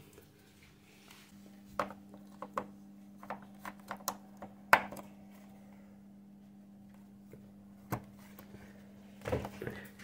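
Scattered light clicks and taps of hands handling the dishwasher's plastic housing and mains cable connector, the sharpest click a little under five seconds in. A low steady hum runs underneath.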